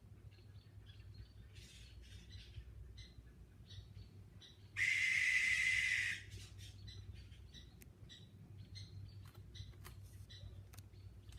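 A great horned owl gives one loud, raspy, hissing screech lasting about a second and a half, about five seconds in. Faint short chirps repeat throughout.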